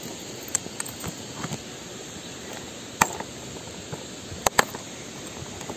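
Scattered clicks and taps of a clear plastic tackle box and the metal lures inside it being handled, over a steady low hiss. The sharpest click comes about three seconds in, with a quick pair of clicks near four and a half seconds.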